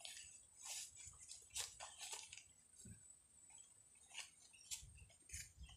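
Faint, scattered rustling and crinkling of black plastic seedling polybags and soil being handled, with a few soft clicks.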